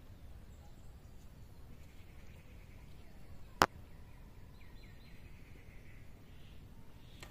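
A single sharp click about halfway through, over faint outdoor background noise.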